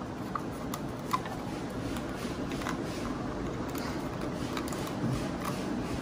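A Phillips screwdriver turned by hand in the screws of a plastic wall-switch faceplate, making a few faint, scattered ticks over a steady background hiss.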